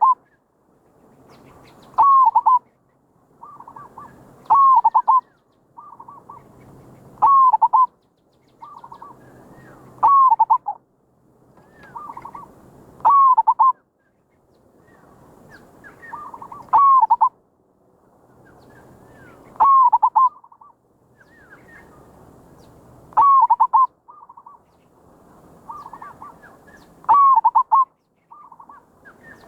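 Zebra dove (merbok) cooing: a loud trilled coo phrase repeated about every three seconds, with softer, shorter coos in between.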